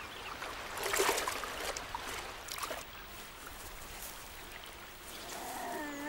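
River water splashing and trickling around a brown bear wading through shallow water, with a louder splash about a second in.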